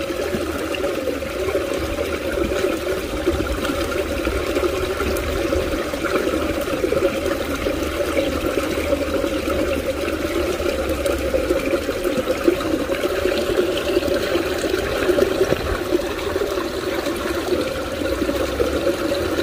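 Water pouring steadily into a small ditch, churning the pool's surface into foam: an even, continuous rushing.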